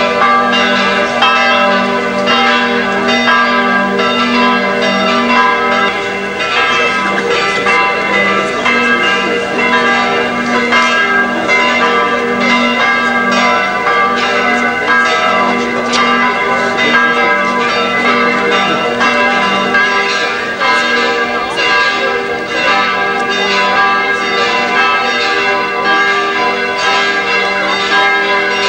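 Several church bells ringing together in a continuous full peal, their strokes overlapping at several pitches.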